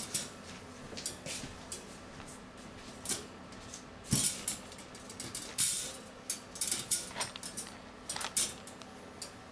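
Persian kittens moving and scrabbling about: irregular light clicks and scuffs, with a faint steady hum underneath.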